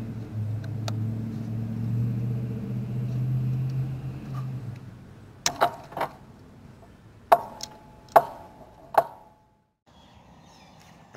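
Ratchet strap buckle being released to let tension off a wire fence: a series of sharp metallic clicks and snaps in the second half. Before that, a steady low hum.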